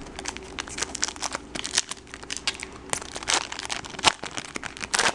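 Foil trading-card pack wrapper being crinkled and torn open in the hands: a run of irregular sharp crackles.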